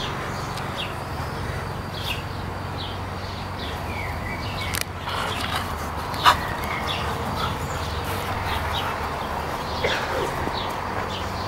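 Small birds chirping repeatedly over a steady low hum, with one short sharp sound about six seconds in.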